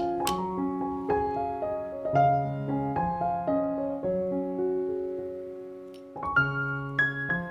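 Background piano music: gentle notes and chords that die away just before six seconds in, then start again.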